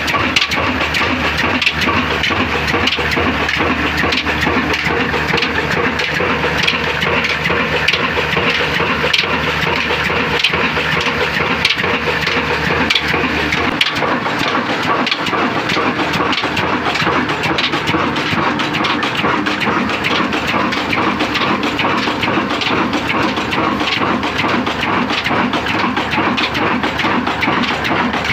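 Old Ruston Hornsby horizontal single-cylinder diesel engine running steadily under its big spinning flywheel, with a loud, continuous rapid clatter.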